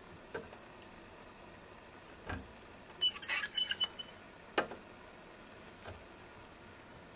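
Soldering-iron work on a copper sheet seam: scattered light metal taps, with a quick cluster of sharp, ringing clinks and crackles about three seconds in, over a faint steady hiss.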